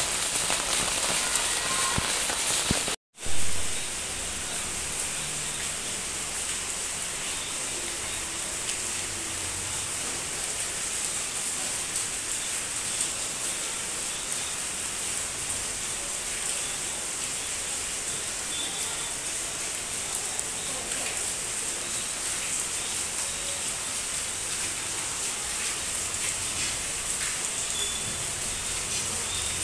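Steady rain falling on potted plants, an even, dense hiss that holds level throughout. It cuts out for an instant about three seconds in and comes back with a brief loud swell.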